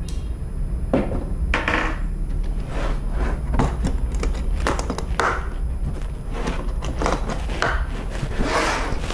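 Handling noises from a hard plastic tool carrying case and its parts on a table: scattered clicks, knocks and short scrapes, with a longer scraping rustle near the end, over a steady low hum.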